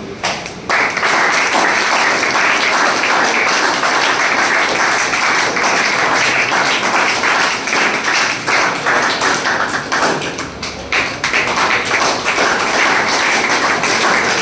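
A roomful of people clapping hands, starting less than a second in and easing briefly about ten seconds in before picking up again.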